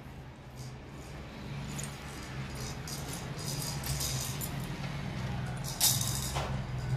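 Glass bangles jingling and clinking lightly as the wearer's arm moves, more often in the second half, with one sharp knock about six seconds in, over a steady low hum.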